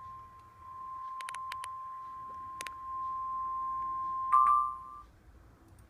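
NOAA Weather Radio 1050 Hz warning alarm tone, a steady pure tone that signals an alert broadcast is about to begin, with a few faint clicks over it. A loud crackle comes about four seconds in, and the tone cuts off about a second later.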